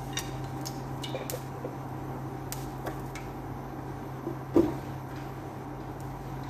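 Kitchen handling as the olive oil bottle is put away: light clicks and knocks, then a dull thump about four and a half seconds in, over a steady low hum.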